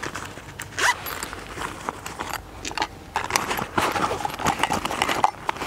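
Gear being handled and packed into a waxed canvas backpack: irregular rustling of canvas with small knocks and light clicks.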